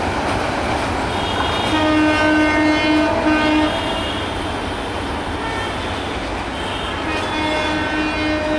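Train horn sounding in a string of short blasts about two seconds in, and again near the end. Under it runs the steady rumble of a passenger train on the move.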